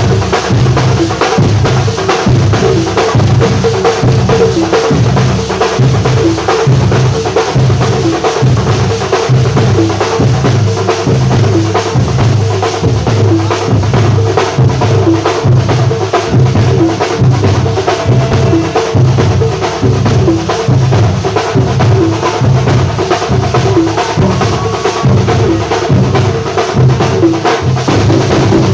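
Music with a steady drum-kit beat, the bass drum and snare prominent, playing continuously.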